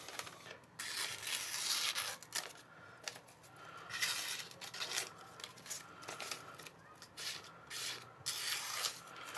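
Newspaper rustling and being sliced with an M390 steel knife in a series of short, irregular strokes: a paper-cutting test of the edge's sharpness.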